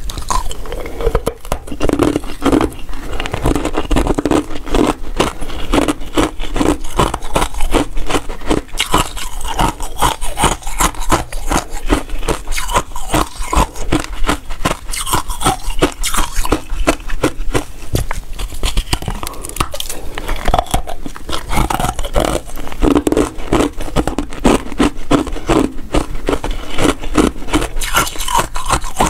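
Close-miked crunching and chewing of frozen basil seed ice, a dense, unbroken run of sharp cracks, mixed with ice pieces scraping in a plastic bowl.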